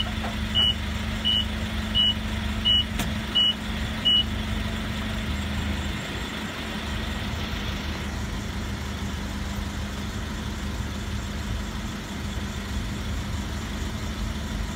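Nissan forklift's reversing alarm beeping at an even pace, about once every 0.7 s, stopping about four seconds in, over the steady running of the forklift's engine. A single click sounds about three seconds in.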